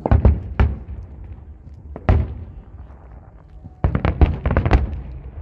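Aerial fireworks shells bursting with loud booms. There are a few single bangs in the first two seconds, then a quick volley of bangs about four seconds in.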